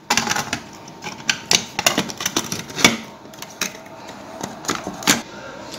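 Irregular clicks and knocks of a switch base and wires being handled and seated into the sheet-metal box of a double-pole iron-clad main switch.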